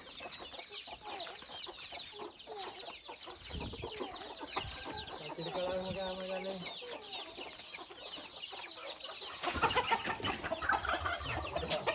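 A flock of country chickens clucking while chicks peep in a constant stream of short high chirps. From about three-quarters of the way in, the clucking grows louder and busier as the birds are chased for catching.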